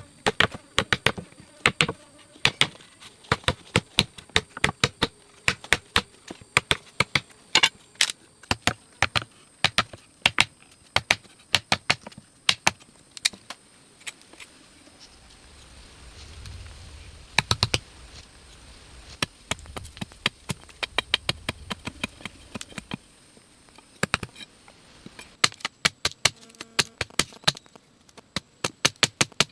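Irregular sharp taps and knocks, often several a second in quick clusters, over a faint steady high-pitched whine.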